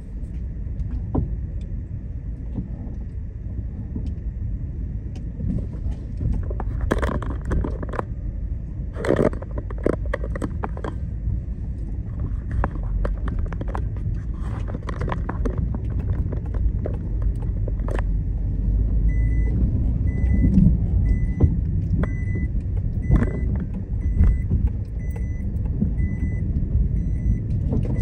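Car driving through city traffic: a steady low road and engine rumble with scattered rattles and knocks. About two-thirds of the way through, a high beep starts repeating at an even pace, a little over once a second.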